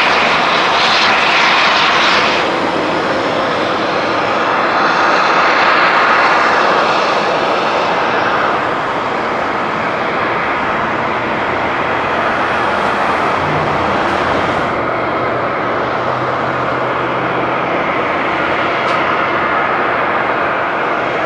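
Airbus A330-300's Rolls-Royce Trent 700 turbofans running at taxi power, a steady jet whine and rush that eases slightly about eight seconds in.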